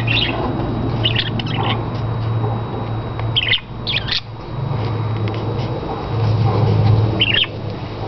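Pet budgerigars giving short, high chirps and squawks, a handful of brief calls spread through, over a steady low hum.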